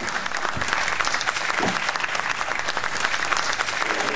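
An audience applauding steadily, with a couple of brief voices in the crowd.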